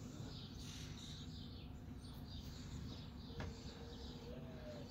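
Birds chirping faintly over low outdoor background noise, with a single light knock about three and a half seconds in.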